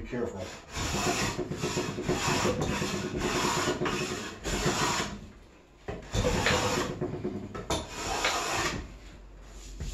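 Hand plane set tight for fine finishing cuts, shaving the face of a softwood timber in long smoothing strokes. Two long passes with a short pause about halfway through.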